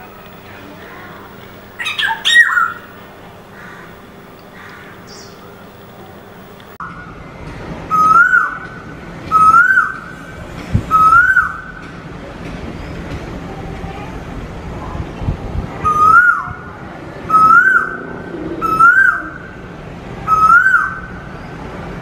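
Asian koel calling: a loud whistled note that rises and then holds, repeated at a steady pace, three times, then after a pause four times more. Before it, about two seconds in, a single short bird call.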